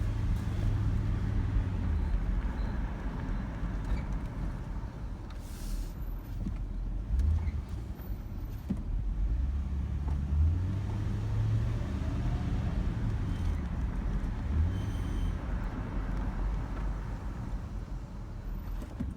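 2011 Ford Crown Victoria's V8 driving, engine and road noise heard from the moving car, the low engine note rising and falling in steps several times.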